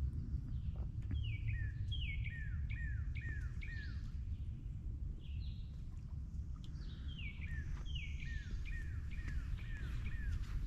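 A songbird sings two phrases of repeated down-slurred whistled notes, five or six notes each, with a pause of a few seconds between them, over a steady low rumble.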